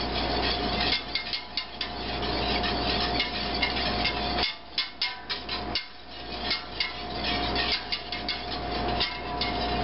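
Wire balloon whisk stirring flour-thickened gravy in a stainless steel stockpot, its wires clicking and scraping irregularly against the metal sides and bottom, over a steady low hum.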